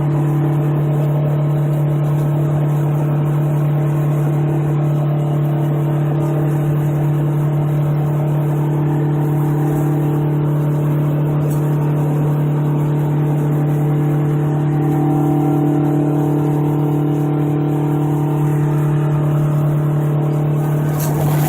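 Straight-piped 8V71 Detroit Diesel, a two-stroke V8, running at a steady engine speed as the 1980 GMC General semi truck drives. It is a loud, constant drone that holds one pitch throughout.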